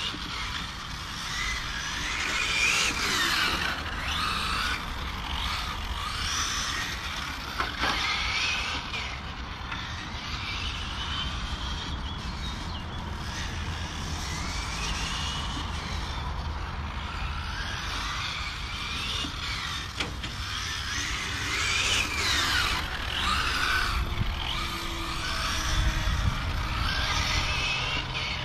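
Several 1/8-scale electric RC GT cars racing, their brushless motors whining, rising and falling in pitch as they accelerate, brake and pass, with several whines overlapping, over a low rumble.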